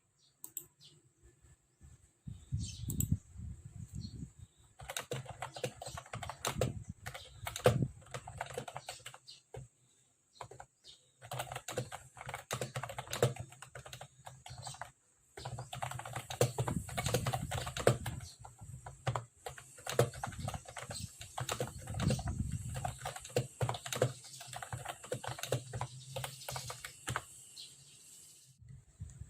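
Typing on a Mofii Sweet wireless keyboard: quick, irregular key clicks in runs, with a few brief pauses, stopping near the end.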